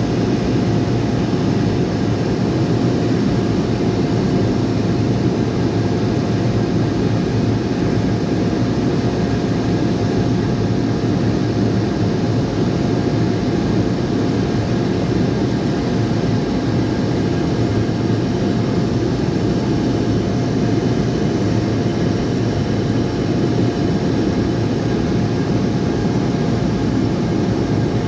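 Steady drone of a propeller plane heard from inside the cabin in flight: a loud, even rumble with a constant engine tone.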